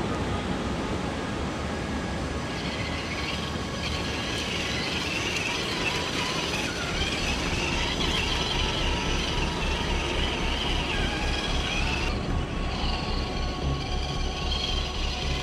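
Gmade GS02F Buffalo 1/10-scale RC crawler's electric motor and geared drivetrain whining steadily as it crawls over leaves and rock.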